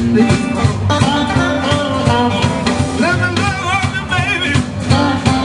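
Live blues band playing electric guitars, bass guitar and drums, with a steady beat and a wavering lead line over it.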